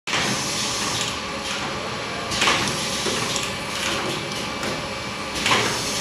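Automatic perfume filling, crimping and collaring machine running: a steady mechanical hiss broken by short bursts of air, the two loudest about two and a half seconds in and near the end.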